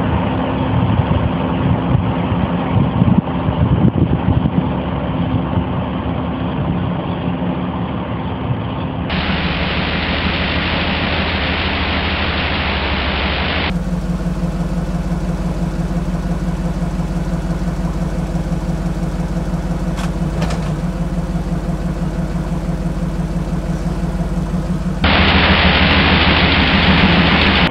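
1985 Pontiac Firebird's 305 small-block V8, which has a spun bearing, running steadily at about idle. Its tone changes abruptly three times where separate recordings are joined.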